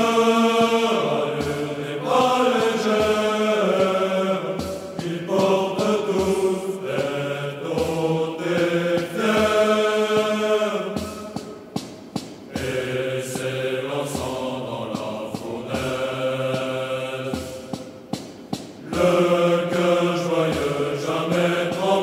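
A choir singing a slow song in long held notes, phrase after phrase with short breaths between.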